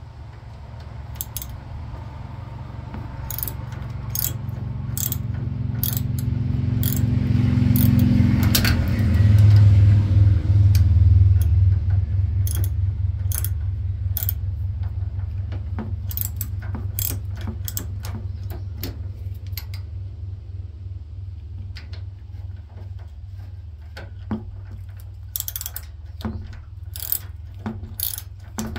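Socket ratchet clicking in short, irregular strokes as it works a nut loose on a Craftsman YT4000 lawn tractor's steering linkage, with quicker clicking near the end. Under it a low hum grows to its loudest about ten seconds in and then slowly fades.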